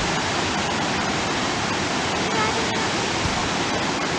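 Steady rushing noise of waterfalls in a gorge, an even wash of falling water.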